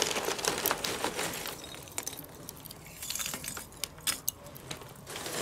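Lumps of charcoal clinking and clattering against each other as they are set by hand onto the coal pile in a Weber kettle grill: a string of light, irregular clicks.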